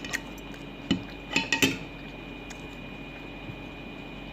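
A few clinks of cutlery against a plate or dish while eating: one just after the start, one about a second in, and a quick cluster around a second and a half.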